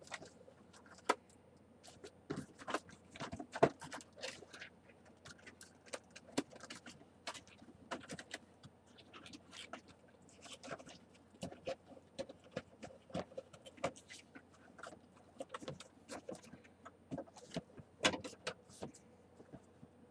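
A toy box and its packaging being handled and opened by hand: irregular clicks, taps and rustles, with sharper knocks about a second in, a few seconds in and near the end.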